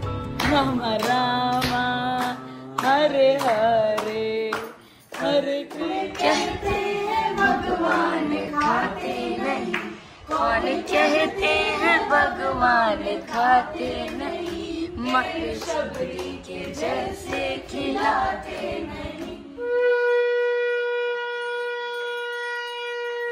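Group devotional singing with hand claps. About twenty seconds in, the singing gives way to a conch shell blown in one long steady note.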